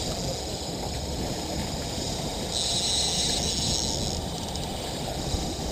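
Steady rush of wind and water noise on an open boat. A brighter, higher hiss comes in about two and a half seconds in and lasts a little over a second.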